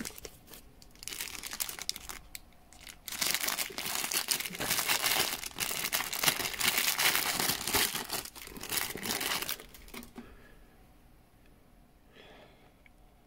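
Clear plastic bag crinkling and rustling as a handheld radio is unwrapped, in busy stretches that stop about ten seconds in.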